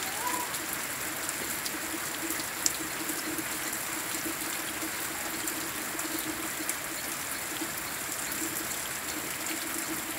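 Steady rain falling, with water dripping off a roof edge in scattered ticks; one sharper drip comes a little under three seconds in.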